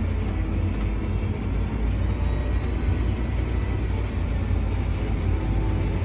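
Tractor engine running steadily, heard from inside the cab: a continuous low rumble with a faint high whine over it.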